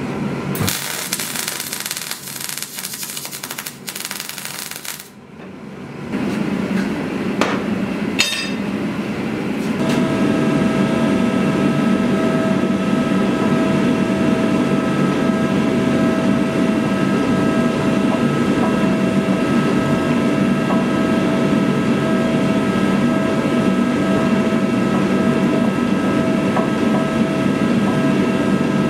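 MIG welder crackling and hissing for the first few seconds. Then a forge running with a steady roar and a held, even whine, heating a blade.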